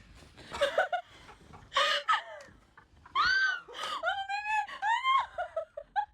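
High-pitched whining cries: three drawn-out wavering calls about three seconds in, followed by short yelps, after a few breathy gasps.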